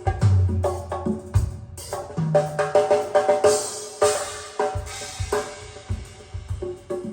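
A recorded drum-and-bass-guitar track played through Snell Type A/III loudspeakers: busy drum-kit hits with pitched toms, cymbal wash and held bass notes.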